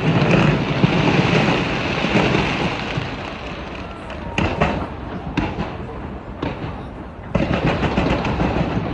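Fireworks going off over a noisy crowd, with a string of sharp bangs and crackles in the middle and a surge of noise near the end.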